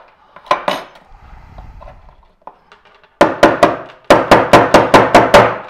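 Small hammer tapping to drive the detent ball out of a Skif 422A folding knife's liner lock: two knocks about half a second in, then a fast run of about a dozen sharp taps, some six a second. The ball is seated tight and does not come out.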